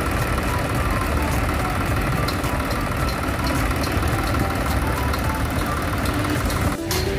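Diesel engine of a site pump set running steadily at one speed, with an abrupt break near the end.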